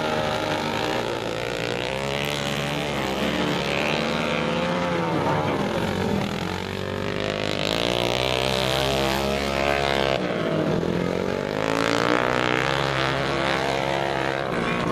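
Dirt-track racing motorcycle engine revving hard, its pitch repeatedly swelling and falling as the bike slides through the turns and opens up on the straights.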